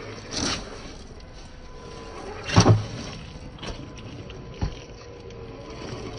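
Electric motor of a 1/10-scale RC crawler (YK4102 Pro Jeep Rubicon) whining steadily as it drives over rough ground, with a few knocks from the chassis and tyres striking rocks, the loudest about two and a half seconds in.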